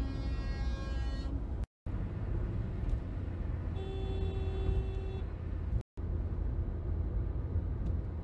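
Steady road and engine rumble from inside a car driving on a highway, with a vehicle horn sounding twice: a held honk that stops about a second in, and another steady honk about four seconds in lasting about a second and a half. The sound cuts out completely for a moment twice, where clips are spliced.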